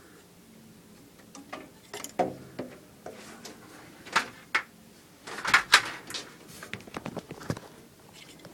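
Handling noise: irregular sharp clicks and small knocks of a plastic furnace pressure switch being turned over in the hand, thickest for about a second around the middle.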